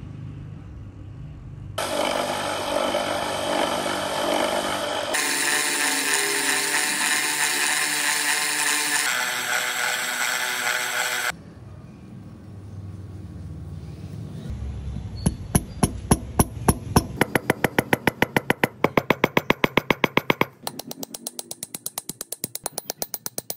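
A loud, steady rasping noise for about nine seconds, then, after a quieter spell, rapid light hammer taps, about four to eight a second, peening the copper rivets that join the shuriken's blades.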